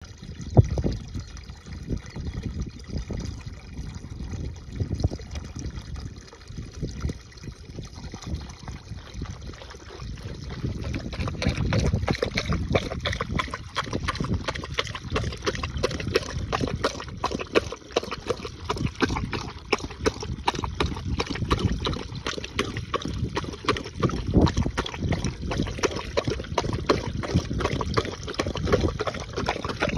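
A jet of water from a pipe spout splashing steadily into a full concrete water trough, a continuous trickle and splatter that gets louder about a third of the way in.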